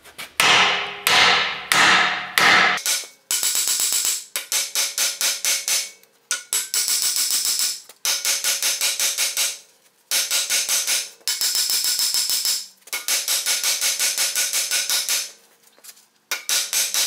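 Hammer striking the Dana 44's steering knuckle to shock the stuck ball joint studs loose from their tapers: four heavy blows at first, then bursts of rapid, even blows with the steel ringing. The ball joint is fighting and not yet letting go.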